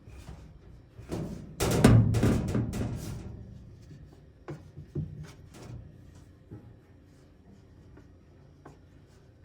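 Hollow banging and rattling from the metal drum and cabinet of a portable clothes dryer being handled during a belt repair. It is loudest about two seconds in, followed by a few scattered knocks.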